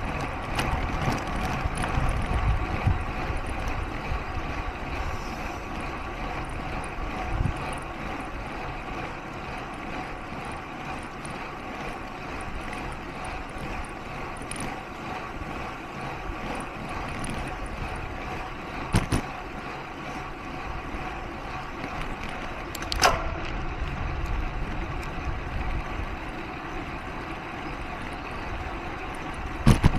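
Road bicycle climbing: a steady whir of tyres and drivetrain, with wind rumbling on the microphone at first and three short sharp clicks in the second half.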